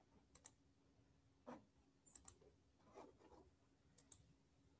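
Near silence with a handful of faint, irregular clicks from working a computer, as a presentation screen share is started.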